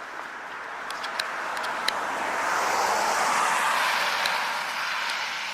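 A car passing by, its road noise swelling to a peak about three seconds in and then fading away.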